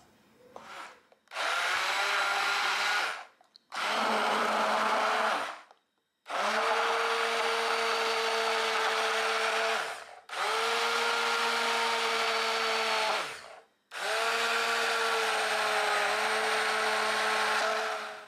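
Immersion blender puréeing a pot of roasted squash soup, run in five bursts of two to four seconds each with short pauses between. Its motor hum holds steady while running and sags briefly in pitch each time it is switched off.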